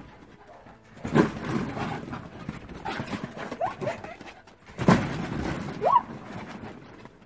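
Dog playing among water balloons on a trampoline: two loud sudden sounds, one about a second in and one near five seconds, with rustling and knocking between them and two short rising squeaks.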